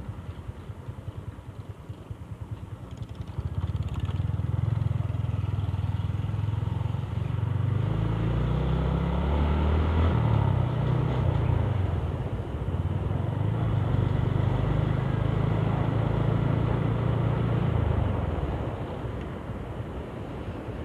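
A freshly tuned RS125 Fi motorcycle's engine under way. It is faint at first, then from about four seconds in it pulls harder and louder. Its pitch rises and falls twice in the middle, holds steady, and eases off near the end.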